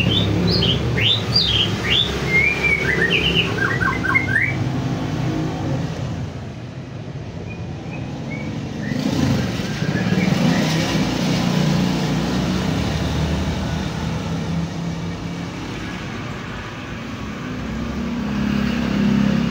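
Steady low rumble of background traffic, with a small bird chirping a quick run of rising and falling notes for the first four seconds or so.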